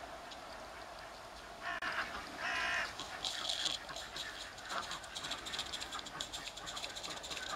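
Small live-steam garden-railway locomotive with oscillating cylinders (IP Engineering 'Jane') running, its exhaust a steady hiss with a fast run of ticks that grows louder about three seconds in. A bird gives two short harsh calls about two seconds in.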